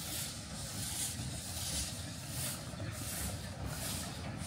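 Small narrow-gauge steam locomotive working slowly, its exhaust giving an even beat of hissing chuffs, roughly two a second, over a low steady rumble.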